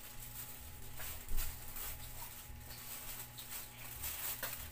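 Plastic bag rustling and crinkling in handling, with scattered light clicks and one short louder knock about a second in, over a steady low hum.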